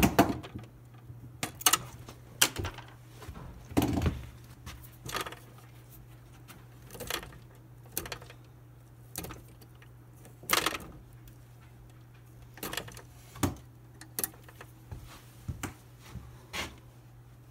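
Hand wire cutters snipping through a copper electrical wire with a sharp click, then irregular clicks and ticks as the wire is trimmed, stripped and handled against the sheet-steel panel box, over a steady low hum.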